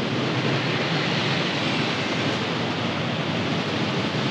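Rain falling steadily: an even hiss with no breaks.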